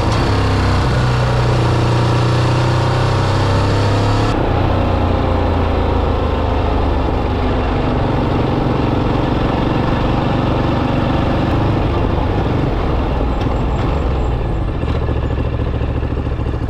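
Ducati DesertX's 937 cc L-twin engine running while riding, its pitch rising and falling with the throttle, over an even rush of wind and road noise that drops in level about four seconds in.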